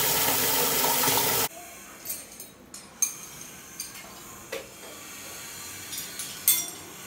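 Tap water pouring into a plastic bucket, a steady splashing rush that cuts off abruptly about a second and a half in. After it, scattered light knocks and clicks, with one sharper knock near the end.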